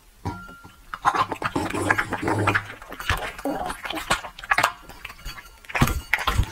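A bully-breed dog chewing and smacking on soft fruit: wet mouth clicks and lip smacks. Near the end come a couple of heavier low thumps.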